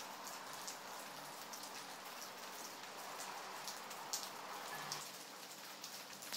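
Rain falling steadily, an even hiss with scattered sharper drops ticking through it.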